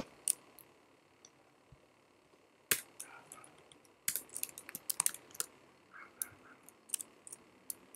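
Sparse keystrokes on a computer keyboard. A single sharp key click comes nearly three seconds in, then a scattered run of taps follows over the last five seconds.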